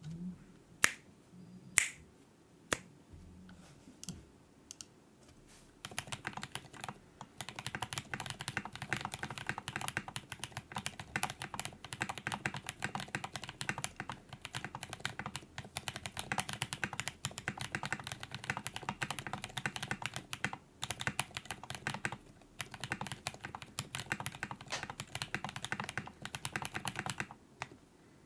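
Mechanical keyboard with lubed half-silent switches (Gateron milky yellow housings and springs with Cherry silent black stems) on an FR4 plate with PBT keycaps. A few single clicks come in the first few seconds, then fast, steady typing. Each keystroke gives a loud bottom-out and a silent upstroke.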